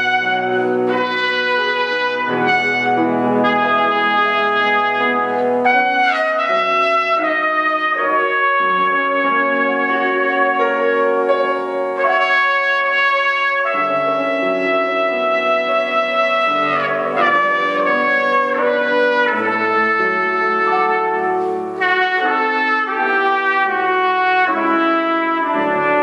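Trumpet playing a classical piece: a continuous line of held and moving notes, with two short breaks for breath.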